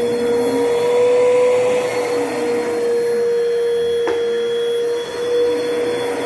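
Upright vacuum cleaner running steadily: an even motor whine over the rush of airflow. A single sharp click comes about four seconds in.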